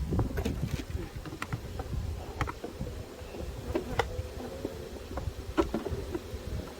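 Honeybees buzzing, with about half a dozen scattered sharp clicks and knocks from hive equipment being handled.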